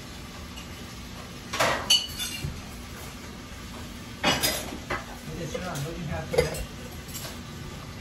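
Cutlery and dishes clinking and scraping as people eat at a table: a few sharp clinks, one ringing briefly, about two seconds in, more clatter about four seconds in, then lighter clatter.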